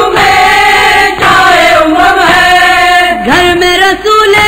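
Noha, a Shia lament in Urdu, being chanted: voices hold long notes and slide between pitches without a break.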